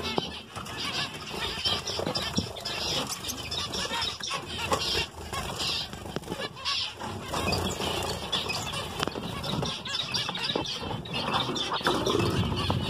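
A flock of zebra finches calling, a dense chatter of many short calls overlapping, with wings fluttering near the end as a bird flies between perches.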